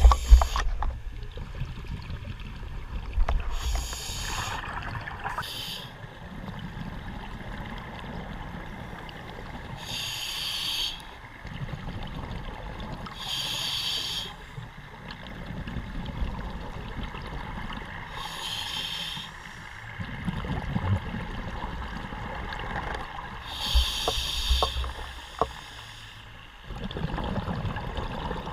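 Scuba diver breathing through a regulator underwater. A short hiss of each breath comes about every five seconds, and the low rumbling of exhaled bubbles fills the gaps between.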